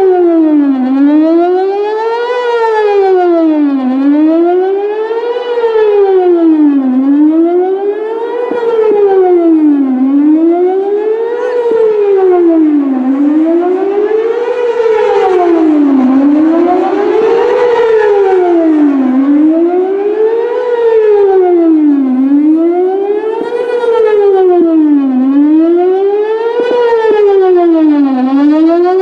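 Whelen WPS-4008 electronic outdoor warning siren sounding a wail during its monthly test: a loud tone rising and falling smoothly, about one cycle every three seconds.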